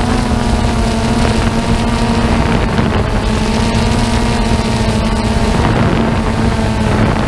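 Quadcopter drone's motors and propellers buzzing at a steady pitch, heard close up from the drone's own camera, with wind rushing over the microphone.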